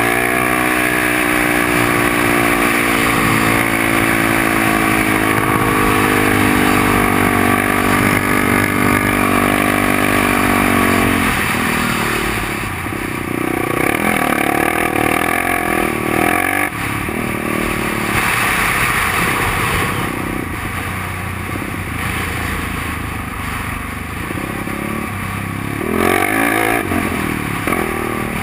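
Yamaha ATV engine pulling hard with the throttle held, its pitch climbing slowly for about eleven seconds. Then the revs drop and rise and fall repeatedly as the throttle is worked, with a louder burst of revs near the end.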